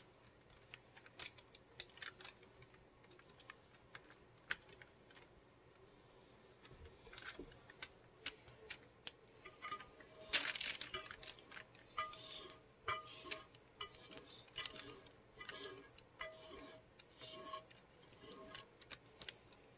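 Faint, irregular clicks, clinks and light scraping of a wire whisk and metal saucepan as thick, hot fondant is poured and scraped out of the pan, sparse at first and busier after about seven seconds.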